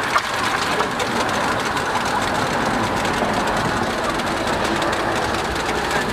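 Hotteok batter rounds sizzling in oil on a flat steel griddle: a steady hiss, with a sharp click just after the start.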